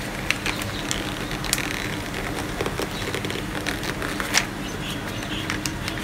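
Paper rustling and crinkling as a magazine page is handled and pressed onto wet spray paint, with a few sharp clicks and taps, over a steady low background hum.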